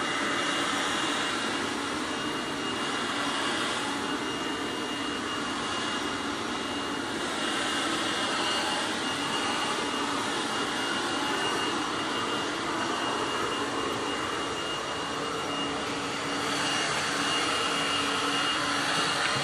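Leaf blower running steadily: a high whine over a rushing noise, growing a little louder near the end.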